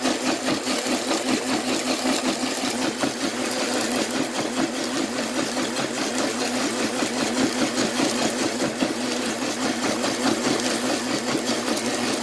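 Hamilton Beach personal blender running steadily, its blade churning soaked sea moss and distilled water into a gel.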